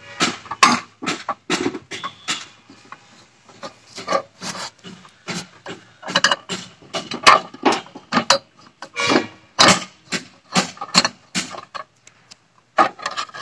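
Hand screwdriver turning screws out of the aluminium heat-sink cover of an inverter welding machine: irregular short scraping and rubbing strokes, a few a second, as the bit works in the screw heads.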